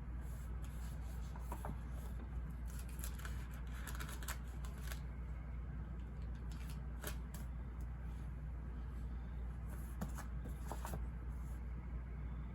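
Scattered soft rustles and clicks of paper being handled, such as Bible pages and notes, over a steady low white-noise hum.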